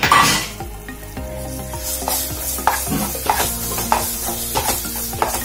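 Mashed moong dal frying in hot ghee in a pan. There is a loud burst of sizzling at the start, then a wooden spatula stirs and scrapes it in repeated strokes, about two a second.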